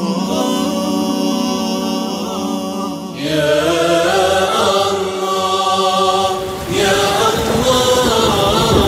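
Theme music: a vocal nasheed, a choir of voices chanting a held melody without clear words. The phrase changes about three seconds in and again near seven seconds.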